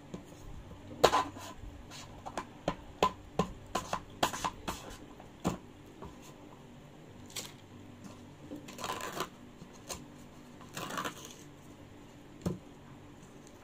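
Plastic clicking and crinkling as a straw is handled and worked into a plastic drink cup: a quick run of sharp clicks and taps, then two longer crinkly rustles and a last tap near the end.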